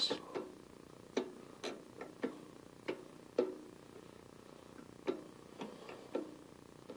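Scattered, irregular clicks and ticks, about ten, as a 6-32 tap held in a drill press chuck is turned by hand through the pulley and cuts a thread into a metal part.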